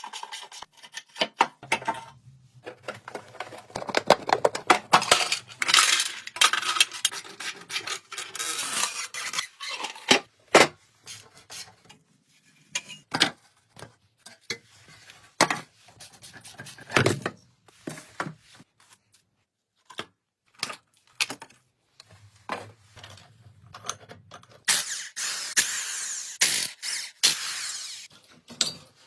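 Hand work on rusty motorcycle parts: metal tools and parts clinking and knocking again and again, with two long stretches of scraping or brushing, one early on and one near the end.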